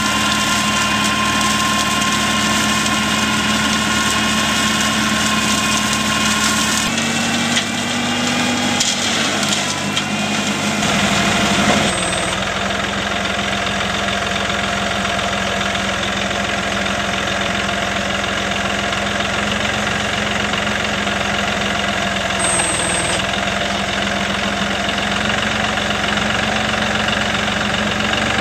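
Compact tractor's engine running steadily, driving a Sauerburger Wiesel side-mounted flail mulcher. The steady pitch changes abruptly about 7 and 12 seconds in.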